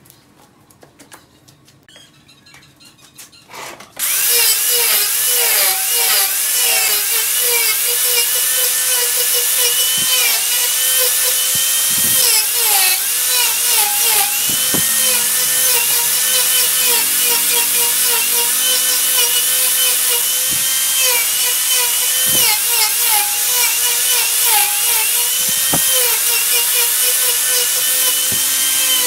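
A few faint handling clicks, then about four seconds in an angle grinder switches on and runs with a steady high whine. Its pitch dips again and again as the disc is pressed into the wood, grinding the turned vase.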